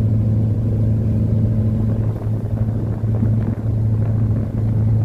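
Small sailing boat's engine running steadily while under way, a constant low drone heard from inside the cabin.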